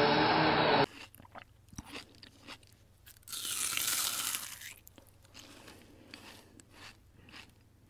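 An upright vacuum cleaner running on carpet stops abruptly less than a second in. It is followed by soft, scattered licking and chewing clicks from a cat grooming its paw, with a breathy, hiss-like stretch lasting about a second and a half in the middle.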